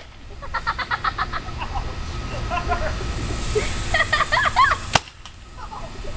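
A single sharp shot from a BT-4 Banshee paintball gun about five seconds in, after several bursts of short, quick, high-pitched calls.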